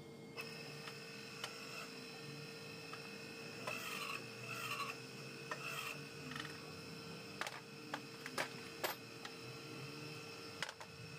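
Hydraulic ram being fitted by hand against the inside of an alloy wheel rim: light scraping and rubbing of metal on metal, then a few sharp clicks in the second half, over a faint steady hum.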